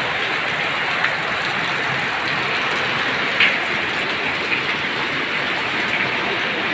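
Heavy rain pouring down in a steady hiss, with one brief louder tap of a drop about three and a half seconds in.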